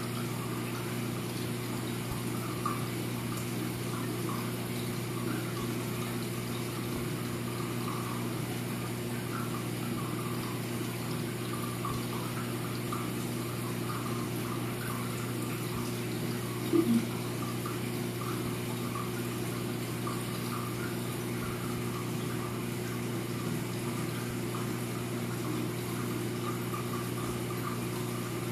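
Saltwater reef aquarium equipment running: a steady pump hum with water trickling and splashing as it circulates through the tank. A short double blip sounds about two thirds of the way in.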